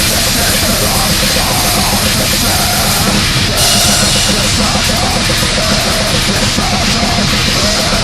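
Black/death metal song from a demo tape: distorted guitars over a drum kit, loud and dense without a break.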